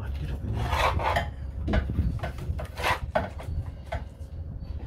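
Scraping and rubbing inside a car's front wheel well: a few irregular rasping strokes, the longest about a second in, as the front fender of a VW Beetle is being unbolted.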